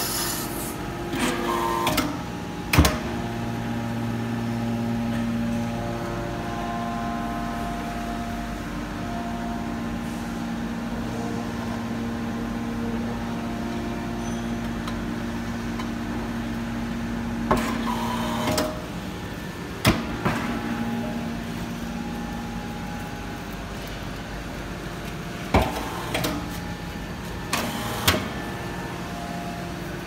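Hydraulic metal-shavings baler running: a steady hydraulic pump hum whose tone shifts as the control valves are worked and the rams move under load. Several sharp metal clunks, the loudest about three seconds in.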